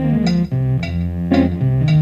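Background music: plucked guitar and bass notes over a regular beat, about two beats a second.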